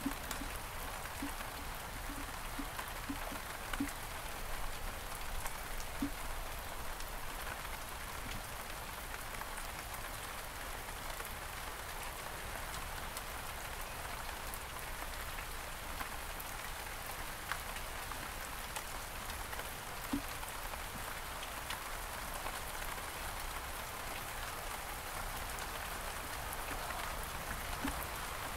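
Steady rain falling on several kinds of surfaces, with a few sharper single taps from individual drops.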